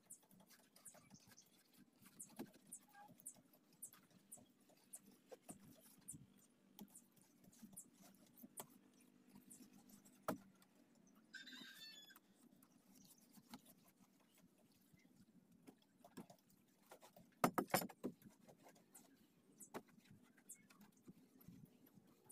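Near silence: faint scattered clicks and scuffs as a hand rubs floor wax, used as release wax, over a fiberglass boat mold. A short high chirp comes about halfway through, and a quick cluster of louder knocks comes a little before the end.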